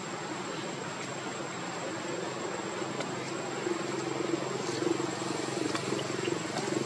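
Outdoor background with a low engine-like drone that grows louder in the second half, over a thin steady high-pitched tone and a few faint ticks.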